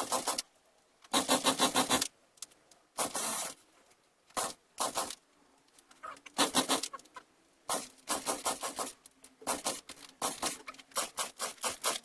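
Partner 510 two-stroke chainsaw being pull-started about eight times in a row, each yank of the recoil starter cord a short rasping, rapidly pulsing whirr as the engine turns over. It doesn't catch: the saw won't start even with a new spark plug.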